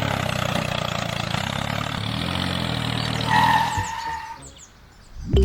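Mini tractor's engine running steadily, with a short higher tone about three seconds in. The engine fades away near the end.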